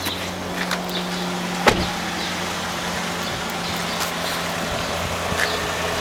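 2009 Toyota Camry SE idling with a steady low hum, and one sharp click about a second and a half in.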